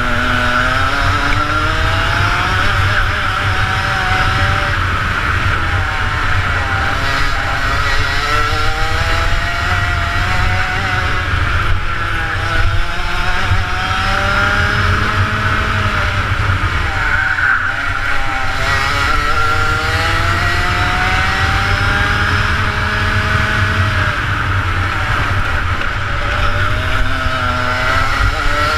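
Rotax Max 125cc two-stroke kart engine at full racing speed, heard onboard. Its note climbs through the revs over a few seconds at a time, then drops back, again and again around the lap.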